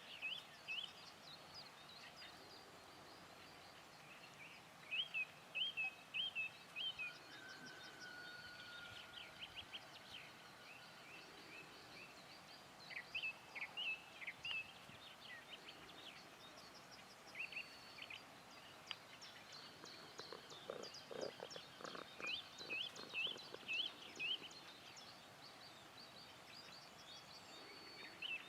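Small birds chirping and singing in short bursts of quick high notes, with a few held whistled notes, over a faint steady hiss.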